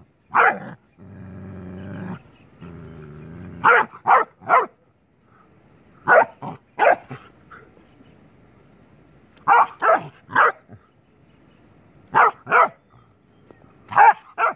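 Bakarwal puppy barking in quick groups of two or three, about a dozen barks in all, with a low growl starting about a second in and lasting a couple of seconds.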